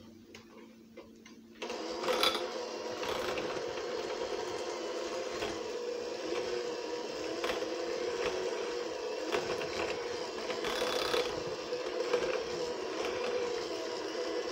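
Electric hand mixer switched on about a second and a half in, then running steadily as its beaters churn a block of cream cheese and butter in a glass bowl. Now and then there is a sharp knock of the beaters against the glass.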